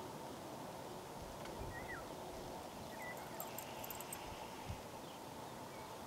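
Faint outdoor field ambience: a steady low hiss with two short, faint chirps and, midway, a brief run of very high ticking.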